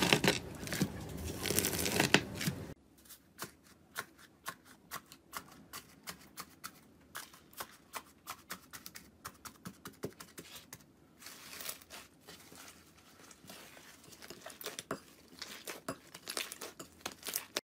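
A knife slicing through foil-covered slime, a dense crinkling crunch for the first three seconds. The sound then changes abruptly to a hand pressing, poking and stretching soft pink slime: a long run of small sharp pops and clicks as air pockets in the slime burst, thicker in a couple of places.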